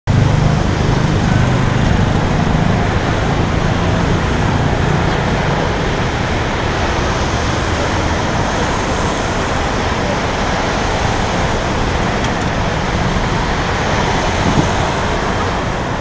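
Busy city street traffic: a steady wash of engine and tyre noise from passing vehicles, with a heavier low engine rumble in the first few seconds.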